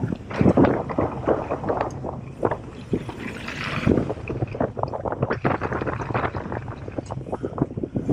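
Mountain bike riding fast down a dirt trail: tyres rumbling over packed dirt, with frequent sharp knocks and rattles from the bike over bumps and wind rushing over the microphone.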